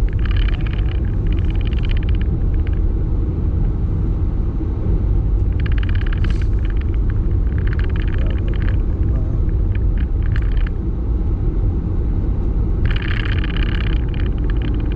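Steady low rumble of a car driving, heard from inside the cabin. Three stretches of higher, crackly noise come and go over it: near the start, in the middle and near the end.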